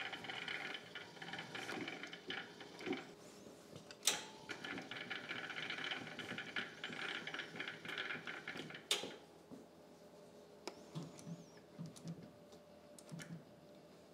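Battery-powered walkie stacker's electric motor whining steadily as it moves and raises a heavy arbor press. There are two sharp clicks, about four and nine seconds in. After the second click the whine stops, leaving only a few light knocks.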